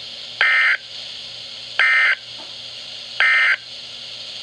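Emergency Alert System end-of-message data bursts on NOAA Weather Radio: three short buzzy digital tone bursts about a second and a half apart, with radio hiss between them. They mark the end of the warning broadcast.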